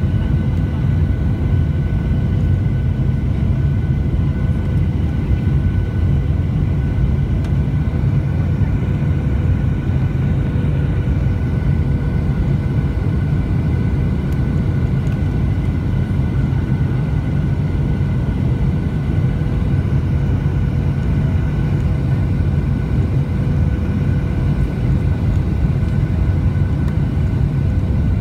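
Jet airliner cabin noise heard beside the wing engine on descent for landing: a steady low rumble of turbofan engine and airflow, with a few faint steady whining tones over it.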